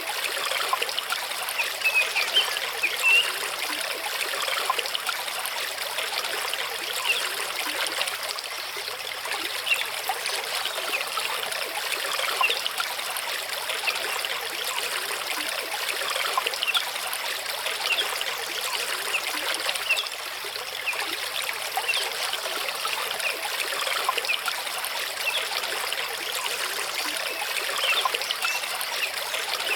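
Mountain stream running over rocks: a steady rush of water with many small trickles and splashes.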